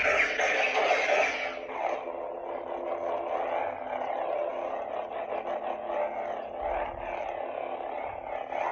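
Lightsaber hilt speaker playing its 'Fallen' sound font: a loud ignition sound at the start, then a steady electronic hum that wavers up and down in pitch as the blade moves, in the smooth-swing response.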